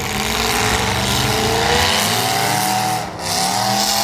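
Small-car demolition derby engines revving hard over a dense noise of running cars, the pitch climbing for about three seconds, dropping off briefly, then climbing again.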